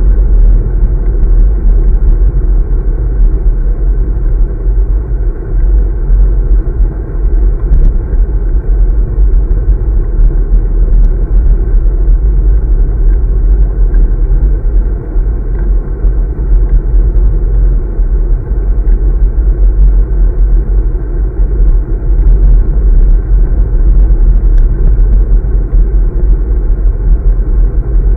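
Wind buffeting the microphone of a handlebar-mounted camera on a moving road bike, mixed with road noise: a loud, steady low rumble.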